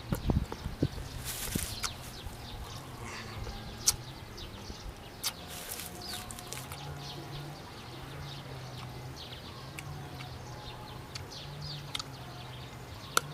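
Chewing and crunching of raw green mango, with sharp clicks from bites, over birds chirping and a low steady hum in the background.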